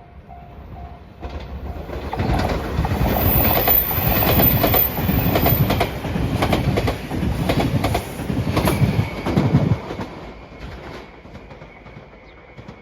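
A level crossing warning bell dinging faintly, then an electric train passing close by for about eight seconds. Its wheels clack over the rail joints in repeated groups before the noise dies away about ten seconds in.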